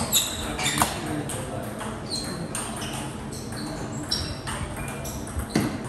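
Table tennis balls clicking on tables and bats: scattered, irregular sharp ticks, the loudest just after the start, again about a second in, and near the end, with indistinct voices underneath.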